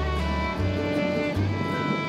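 Background music: bowed strings playing sustained notes over a low bass line that changes pitch every second or so.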